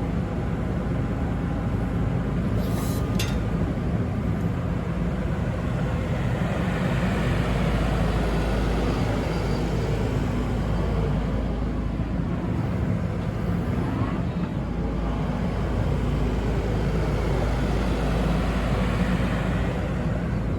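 Kobelco SK85 midi excavator's diesel engine idling steadily, with two brief clicks about three seconds in.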